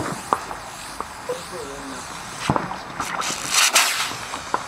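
Firework going off: a few sharp pops and cracks, then a hissing spray of sparks about three seconds in.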